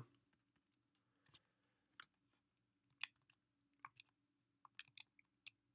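Near silence with a faint low hum and about eight short, faint clicks and taps at irregular intervals, most of them in the second half.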